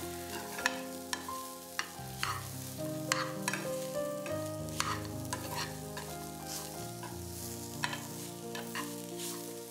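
A steel spoon stirs and scrapes a coarse chilli, mint and peanut mixture frying in oil in a stainless steel pan, with a low sizzle and frequent sharp clinks of spoon on pan. Soft background music with held notes plays underneath.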